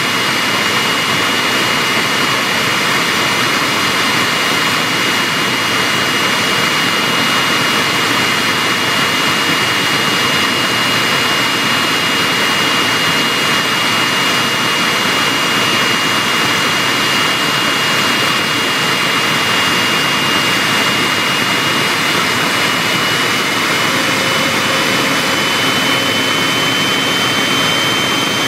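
GE LM2500 marine/industrial gas turbine running steadily while warming up at low power, heard at the intake: a loud, constant rush of air with a high whine. Near the end the whine creeps slightly higher in pitch as the engine speeds up a little.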